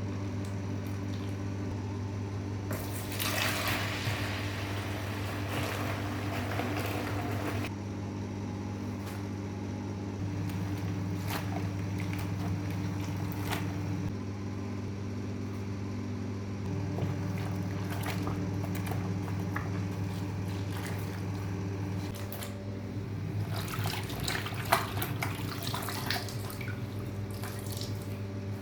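Water splashing and dripping in a sink as a garment is hand-washed, in louder spells a few seconds in and again near the end, over a steady low mechanical hum.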